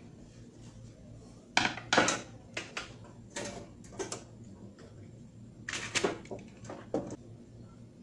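Irregular clicks and knocks from hands-on wiring work in an electrical control panel, as stiff wire and tools are handled at the circuit breaker terminals. The loudest knocks come about one and a half to two seconds in and again near six seconds in.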